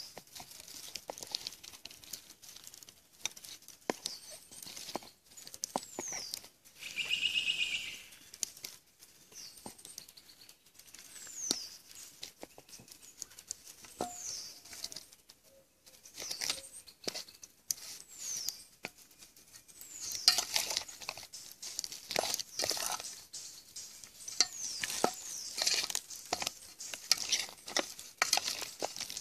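Hands mixing pig trotters in seasoning in a metal bowl: irregular wet handling sounds, taps and clicks. Short high falling chirps repeat every second or two in the background.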